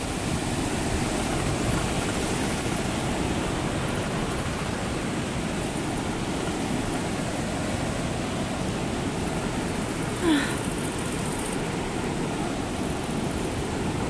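Steady rushing noise of a fast zipline ride: wind buffeting a handheld phone's microphone while the trolley runs along the cable. About ten seconds in, the rider gives a short cry.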